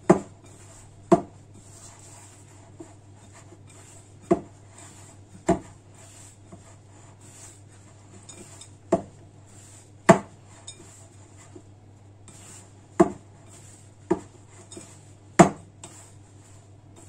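A mixing bowl knocking against the worktop as dough is kneaded by hand in it: about nine sharp knocks, often in pairs about a second apart.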